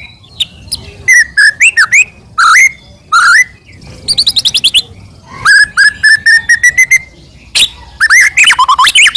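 White-rumped shama (murai batu) singing loudly: bursts of sharp whistled notes swooping up and down, with a fast run of repeated notes about halfway through and more quick notes near the end.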